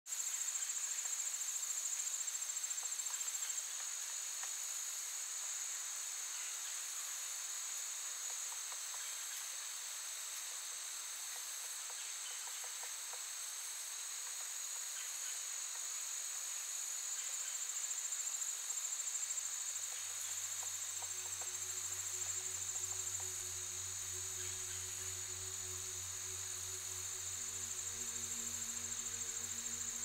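Insects chirring in a steady high trill. About twenty seconds in, several low steady tones come in one after another underneath and hold.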